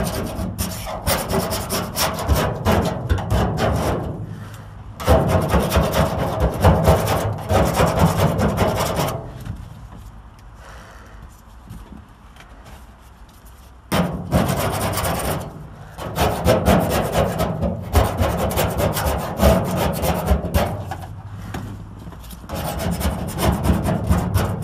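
Hand scraper scraping old sound-deadening material off the bare steel roof panel inside a Chevrolet Caprice, in bursts of rapid rasping strokes. There is a lull of about four seconds in the middle.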